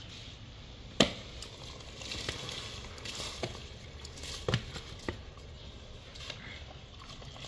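Soaked rice being tipped from a plastic bowl into a metal pot of water, with light splashing and a few sharp knocks, the loudest about a second in.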